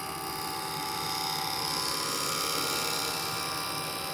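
Small electric motor from a Johnson Model D fare box running steadily with a fairly quiet whir. It plays over the steady rush of a car's engine cooling fan.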